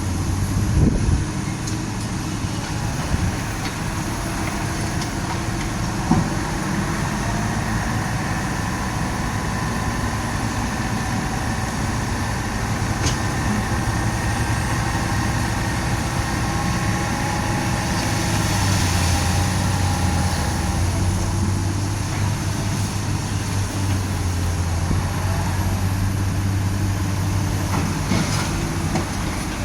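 Heavy diesel truck engine running steadily with a low, even drone that swells a little about two-thirds of the way through, with a few light knocks early on.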